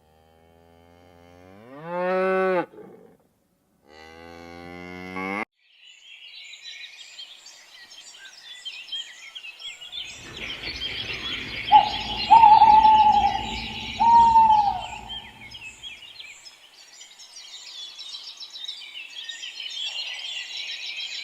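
Cattle mooing: two long calls rising in pitch, the second cut off abruptly. Then a steady high chirping background, with a low rumble and a few loud, short, falling calls in the middle.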